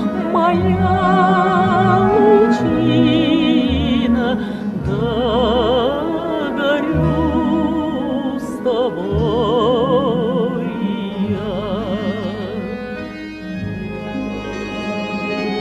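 A solo voice singing a slow Russian folk song in phrases with a wide operatic vibrato, over sustained low instrumental chords.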